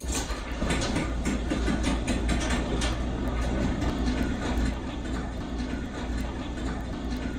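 Ultra Series 7301 belt-drive garage door opener running, the door rolling along its track with its repaired spring: a steady low rumble and hum with scattered clicks and rattles.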